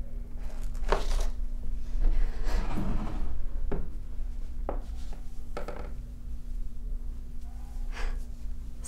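A woman's audible breaths and gasps with a few short sharp clicks, over a steady low hum.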